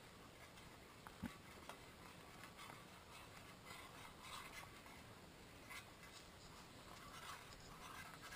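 Near silence, with a spoon faintly scraping and clicking against a small metal pot as it is stirred; one sharper click about a second in.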